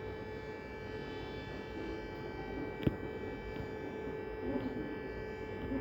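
Steady electronic buzzing alarm tone from an emergency alert broadcast, rich in overtones and holding one pitch, with a single sharp click about three seconds in.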